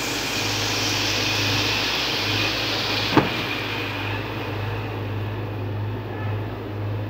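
Sliced mushrooms sizzling in melted butter in a wok over a gas burner, over a steady low hum. The sizzle is strongest for the first few seconds and eases off about four seconds in. There is a single sharp click about three seconds in.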